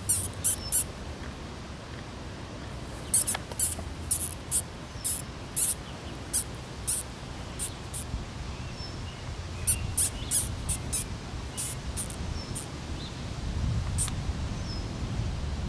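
Small mouse giving short, high-pitched squeaks in irregular clusters: distress calls as it is batted by a cat. A low background rumble runs underneath and swells near the end.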